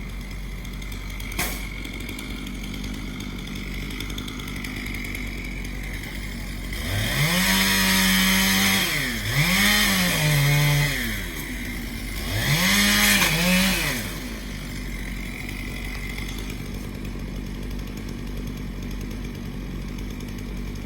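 Two-stroke chainsaw running low in the background, revved up three times; each time the pitch rises, holds briefly and falls back. A single sharp click about a second and a half in.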